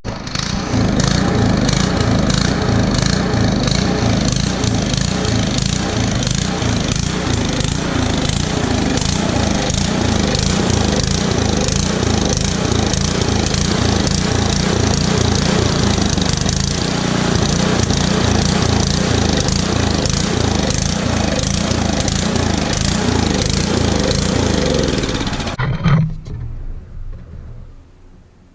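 Ariens Path Pro snowblower's small engine running, which the owner says has a surging problem. Near the end it stops and dies away.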